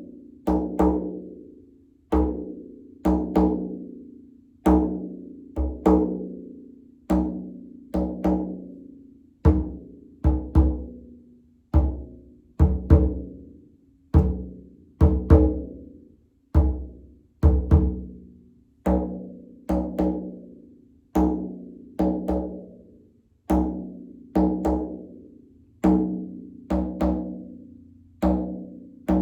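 Frame drum struck in a slow, simple, steady beat, about one stroke a second, each stroke ringing with a low pitched hum and fading before the next.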